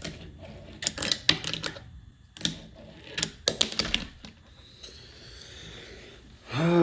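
Fingerboard clacking on a hard surface in three runs of quick sharp clicks during the first four seconds, a trick being tried and not landed. Near the end a person's voice groans, falling in pitch.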